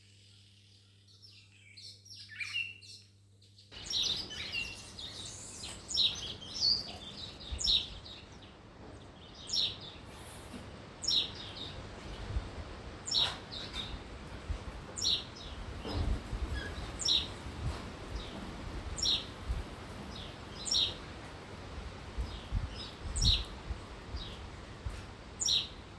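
Small birds chirping outdoors: short, high calls repeated roughly once a second. After about four seconds they sit over a gusty wind rumble on the microphone.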